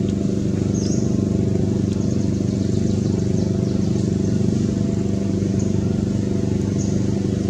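A motor running steadily, a low even hum that does not change, with a few faint short high chirps over it.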